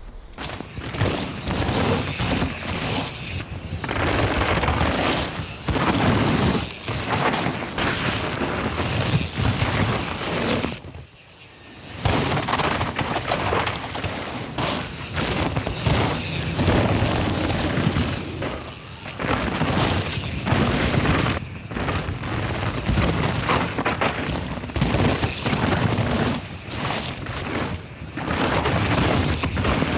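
Mountain bike ridden hard down a wet, muddy trail: tyres tearing through mud and over roots, with a constant clatter of chain and frame rattling and repeated hard impacts. There is a brief lull about eleven seconds in.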